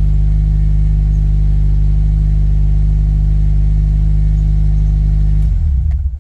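Freshly rebuilt Subaru EJ257 turbocharged 2.5-litre flat-four engine idling steadily, heard from inside the cabin. It is switched off near the end and the sound stops abruptly.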